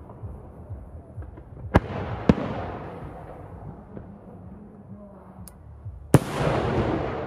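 Aerial firework shells bursting: two sharp bangs about half a second apart a couple of seconds in, and another loud bang near six seconds in, each trailing off in a long echo over a steady low background of more distant bursts.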